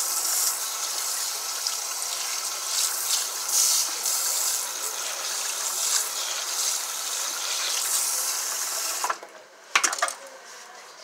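Salon shampoo-bowl sprayer hissing as water runs over hair and scalp during a rinse. The spray stops about nine seconds in, followed by a couple of sharp knocks.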